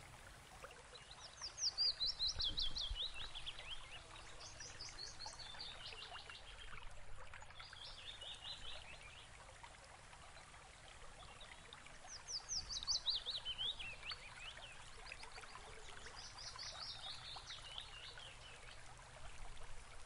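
A songbird singing about five times, each song a quick run of notes falling steadily in pitch and lasting one to two seconds, over the faint steady rush of a shallow woodland creek.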